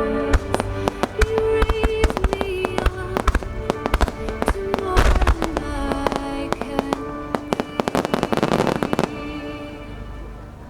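Fireworks finale: shells bursting in quick succession over music played for the starmine show. Near the end a dense rush of bursts builds and then cuts off suddenly.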